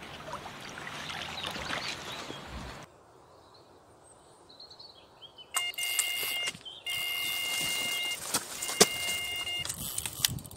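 Electronic carp bite alarm sounding in long steady tones, three stretches with brief breaks from about halfway in: a fish running with the line. Before it, faint bird chirps, and a sharp click near the end.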